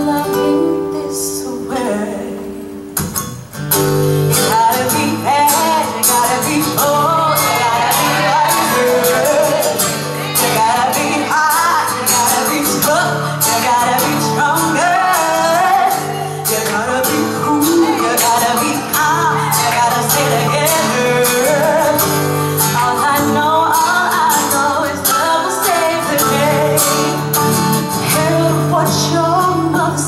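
A cutaway steel-string acoustic guitar is played under a woman and a man singing a duet. About two seconds in the music thins out briefly, then comes back full.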